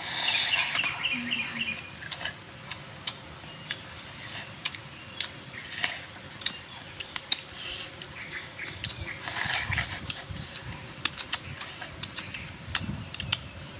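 Close-up eating sounds: a person chewing crisp food, with many sharp irregular crunches and clicks and a couple of longer rustling, crunching passages.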